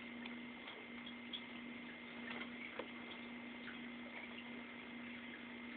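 Faint, scattered light ticks and scratches of degus' claws in bath dust against a glass bowl, over a steady hum.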